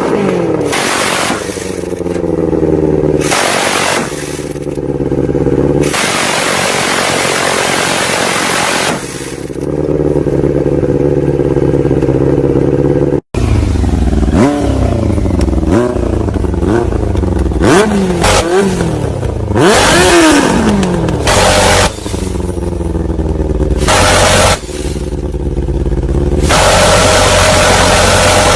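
Motorcycle engine revved over and over, its pitch climbing and falling, with stretches of rapid machine-gun-like rattling from the exhaust lasting up to about three seconds. The sound drops out for an instant about halfway through.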